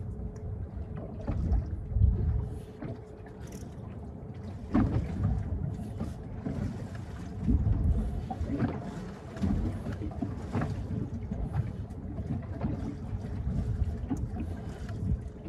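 Wind and water noise on a small boat picked up by a phone microphone, with a faint steady hum throughout and a few short knocks.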